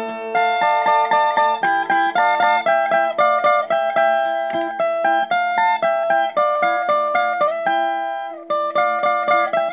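Small guitar-like string instrument picked solo, a quick melody of single plucked notes at about four or five a second, with a brief pause just after 8 seconds in. It is an instrumental break between sung verses.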